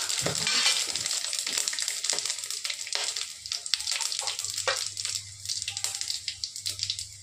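Whole spices (dried red chillies, cumin seeds, cinnamon and garlic) sizzling and crackling in hot ghee and oil in an aluminium kadhai as the tadka starts, with many small pops, dying down a little toward the end.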